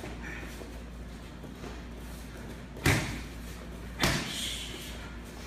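Two punches smack into focus mitts about a second apart, over a steady low hum.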